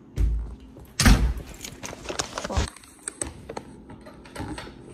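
A door clunking and thudding, the loudest thud about a second in, followed by a run of clicks and rattles.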